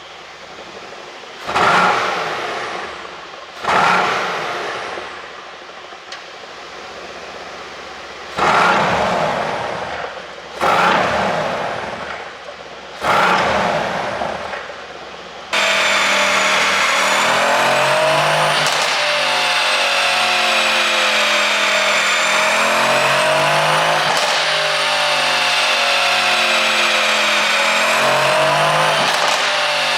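Mercedes-AMG C63's twin-turbo V8, fitted with an ECU tune for exhaust pops, blipped sharply five times, each rev dying away. About halfway through, it changes suddenly to a loud, steady engine note whose pitch slowly dips and rises.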